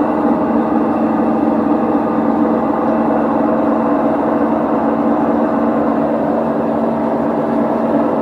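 LG direct-drive washing machine running on spin with a loud, steady hum and whir that holds several tones.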